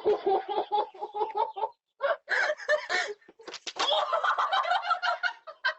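Fowl clucking in rapid runs of short calls, broken by two brief pauses.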